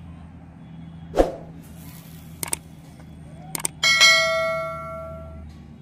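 Subscribe-button animation sound effects: a whoosh about a second in, two pairs of mouse clicks, then a bell chime that rings out and fades over about a second and a half.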